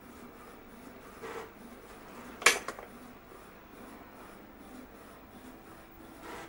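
A sharp click or knock about two and a half seconds in, followed quickly by a couple of smaller clicks, with soft rubbing or shuffling sounds a little over a second in and again near the end, over faint room hiss.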